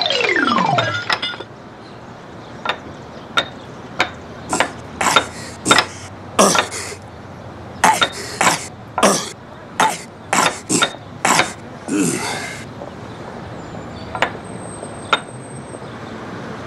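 Cartoon sound effects: a falling sliding tone over the first second and a half, then a run of short, hard clacks of ceramic tiles knocking against the pavement and each other. The clacks come irregularly, some in quick pairs, and bunch closer together before a short rustling burst near the end.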